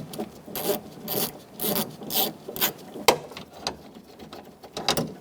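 Ratchet wrench with a 10 mm socket undoing a door handle mounting bolt: short rasping ratchet strokes, about two a second, with a sharp click about three seconds in.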